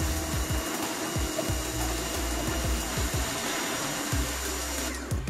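Pressure washer running and spraying a high-pressure water jet onto a tractor engine: a steady hiss of spray that stops near the end.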